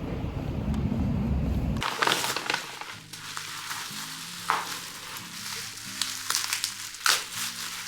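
A dense low rumble like traffic or wind noise for about two seconds, cut off suddenly. Then soft background music with low sustained notes, over which come scattered crisp crackling rustles, about six of them, like wrapping paper or packaging being handled.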